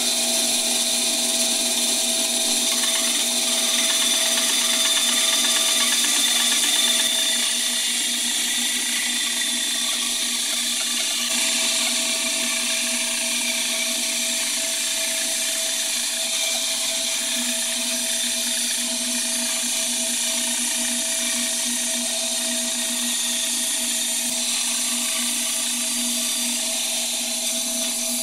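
Small benchtop band saw running at speed, a steady motor hum with a high hiss, as its narrow blade cuts a long, gentle curve through a pine board.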